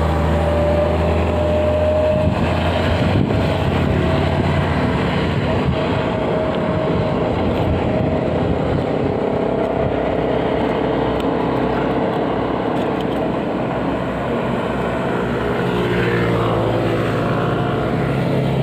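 A motor engine running steadily, its pitch wavering slightly.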